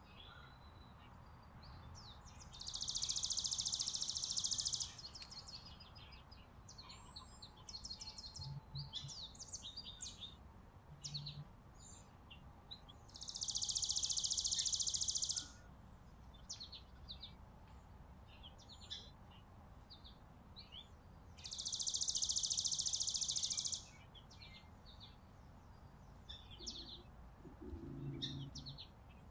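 Small songbirds calling: three long, even, high trills of about two and a half seconds each, some eight to ten seconds apart, with many short high chirps scattered between them.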